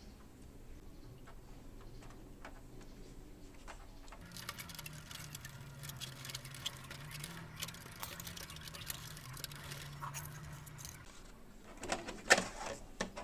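A small motor runs faintly and steadily with a light rattle for about seven seconds, then stops; a few sharp clicks follow near the end.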